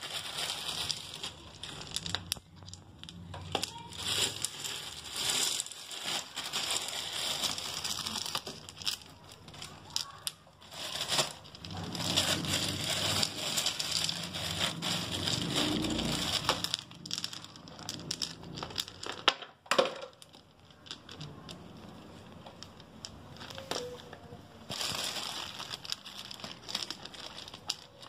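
White decorative pebbles being placed by hand on potting soil: irregular clicks of stone on stone, with crunching and rustling, in uneven bursts and short pauses.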